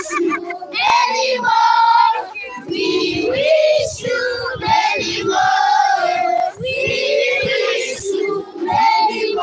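A group of children and women singing together, holding notes as the tune steps up and down.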